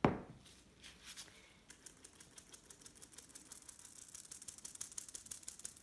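A sharp knock, then flour being sifted through a fine mesh kitchen sieve tapped by hand over a stainless steel bowl: a quick run of light ticks, several a second, growing louder toward the end and stopping suddenly.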